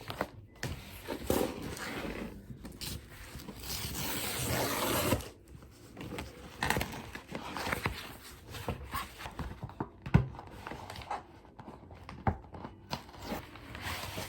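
A large paper envelope being handled and opened: rustling, scrapes and small knocks, with a longer rasping tear about four to five seconds in.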